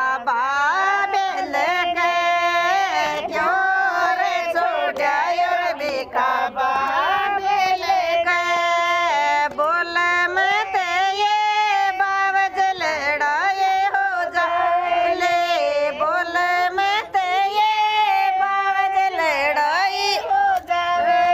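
Female singing of a Rajasthani folk song, a jawai geet (song for the son-in-law), an unbroken melody with sliding, ornamented pitch and no drum beat.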